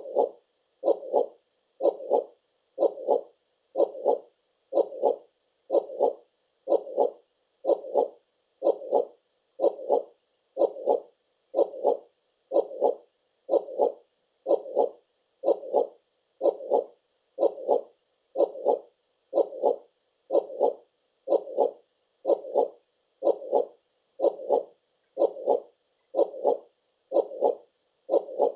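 Heartbeat, a steady double thump (lub-dub) repeating about once a second.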